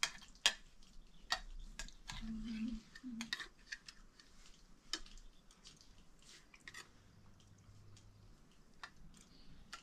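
Spoon clinking and scraping against a plate during eating: faint, irregular sharp clicks about once a second.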